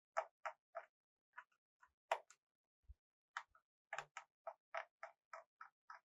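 Faint, sharp clicks in short runs, about three a second, from a screwdriver backing out the screws of a laptop's bottom cover.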